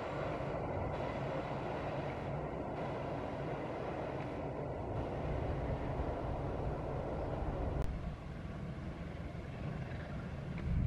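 Passenger train coaches rolling past on the curving track, a steady rumble of wheels on rails. About eight seconds in the sound changes abruptly to a quieter, steadier rumble.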